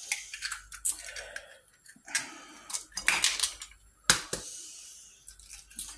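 Eggs being tapped and cracked against the rim of a glass mixing bowl: a run of light clicks and shell cracks, with the sharpest knock about four seconds in.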